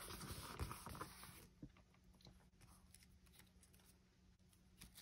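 Paper rustling and rubbing on a craft table for about a second and a half, then faint taps and rustles as small paper pieces are handled.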